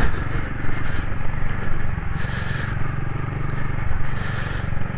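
Royal Enfield Himalayan 450's single-cylinder engine running steadily as the bike is ridden off-road, with two short rushes of noise about two and four seconds in.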